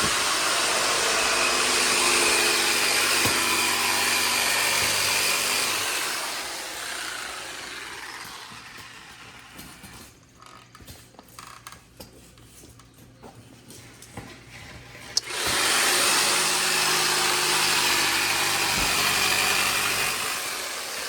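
An electric power tool's motor running at full speed in two long runs of about six and five seconds, each winding down slowly, with a quieter stretch of light knocks and handling between them.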